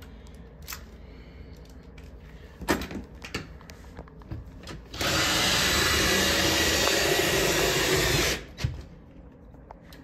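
Cordless drill driving a short screw through a door closer's bracket into a storm door's metal expander, running steadily for about three and a half seconds from about halfway through. Before it come a few light knocks from handling the parts.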